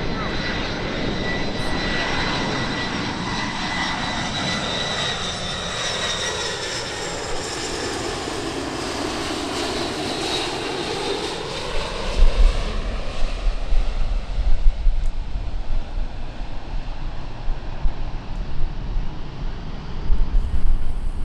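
Jet airliner on landing approach passing the microphone: steady engine noise with a high whine, sweeping through its closest point about halfway and then fading. Wind buffets the microphone through the second half.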